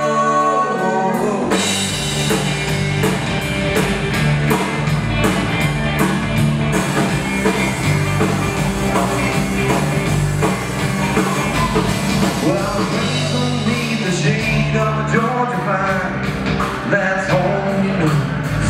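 Live country-rock band playing: drum kit and electric guitars, with a woman singing lead. The full band comes in with the drums about a second and a half in.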